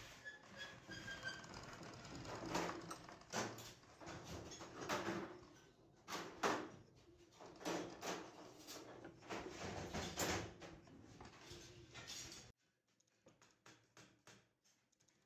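Metal parts of a manual sewing machine being handled and fitted with hand tools: irregular clicks, knocks and scrapes of metal on metal. They stop abruptly about twelve seconds in, leaving only faint ticks.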